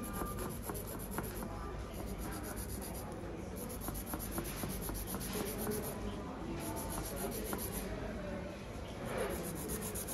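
Fingernails being filed or buffed by hand: continuous rubbing and scraping strokes.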